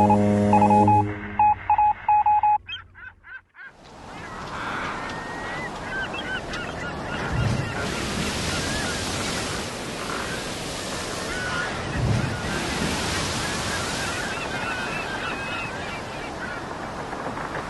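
A short electronic tone and a run of beeps, then open-shore ambience: a steady rush of wind and surf that swells now and then, with many birds calling repeatedly over it in short, wavering honking calls.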